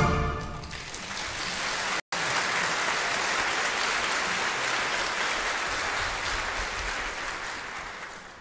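Audience applauding in a concert hall as the orchestra's last chord dies away; the clapping is steady, cuts out for an instant about two seconds in, and fades away near the end.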